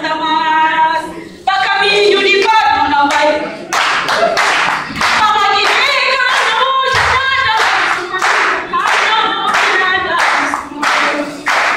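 A woman singing into a microphone; about four seconds in, a group starts clapping along in a steady rhythm of about two claps a second while the singing goes on.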